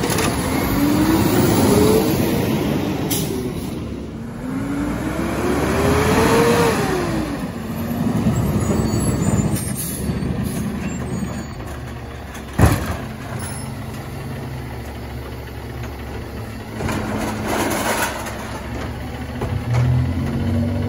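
Garbage truck diesel engine revving up and falling back twice in the first seven seconds, then running steadily lower. A single sharp bang comes about twelve seconds in.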